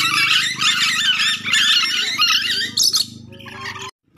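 Ornate lorikeet (nuri dora) calls: a dense run of shrill, rapid, wavering screeches that thins out after about three seconds. The sound cuts off abruptly just before the end.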